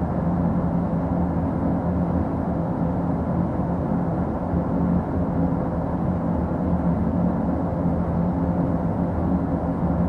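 Camera drone's propellers and motors humming steadily while hovering, an even, unchanging drone with a low buzzing pitch.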